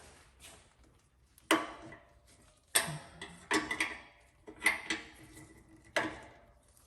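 Five sharp metallic clanks, each with a short ringing tail, spaced about a second apart: metal tools and parts knocking together as they are handled under the truck.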